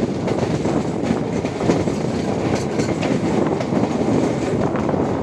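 MEMU electric train running at speed, heard from on board: a loud, steady rumble and rush of wheels on the rails.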